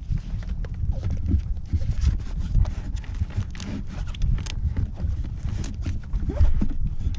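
Wind rumbling on the microphone, with scattered small knocks and clicks that come at no regular pace.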